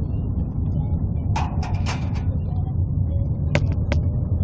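Steady low rumble of a moving vehicle heard from inside its cabin as it drives slowly. A few short hissy noises come about a second and a half in, and two sharp clicks close together come near the end.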